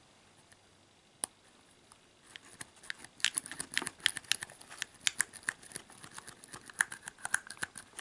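Steel lock pick clicking and scraping against the pin stack inside an ERA discus padlock's four-pin keyway, with a tension wrench held in. A single click about a second in, then a fast, uneven run of small sharp clicks from about two seconds in.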